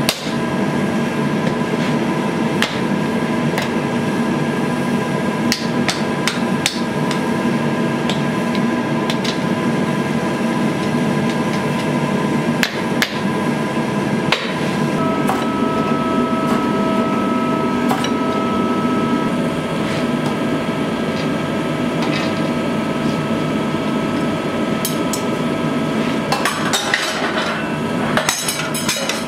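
Hand hammer striking red-hot steel on an anvil, scattered blows, over a continuous steady rushing noise with a faint hum. A denser clatter of sharp hits comes near the end.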